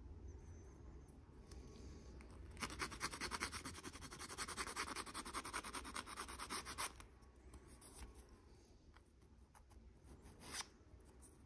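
Small hand file scraping quickly back and forth along the edge of a plastic model tank track part, cleaning off moulding flash, in a run of rapid strokes lasting about four seconds from a couple of seconds in. One more short scrape near the end.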